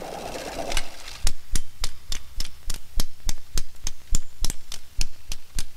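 Scratched film soundtrack running out: sharp pops at an even pace of about three a second over a light hiss, cutting off near the end.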